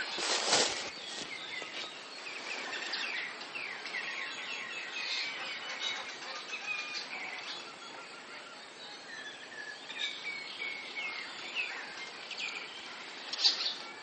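Several small birds chirping and singing, many short falling notes overlapping, over a steady background hiss. Two brief louder bursts of noise come about half a second in and near the end.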